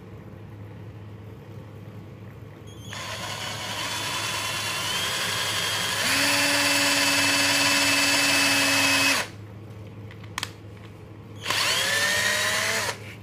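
Xenon XN-CDD505 cordless drill-driver, set to speed 1, drilling into a wooden block with a twist bit made for metal. The motor whine builds and gets louder for about six seconds, then stops. A single click follows, then a second short run whose pitch rises as the drill spins up.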